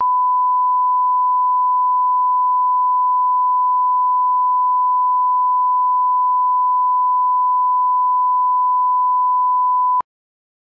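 Broadcast line-up test tone, the steady reference tone that goes with colour bars: one unbroken high pitch that cuts off suddenly about ten seconds in.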